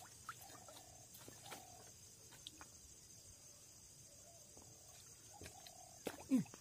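Faint, short clucks of domestic chickens repeating about once a second, with scattered small clicks over a steady high hiss; a louder short call falling in pitch comes near the end.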